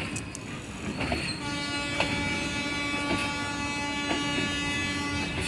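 Freight train wagons rolling past on the track, a steady rumble with occasional sharp clacks of the wheels over the rail joints. From about a second and a half in, a long steady horn sounds until near the end.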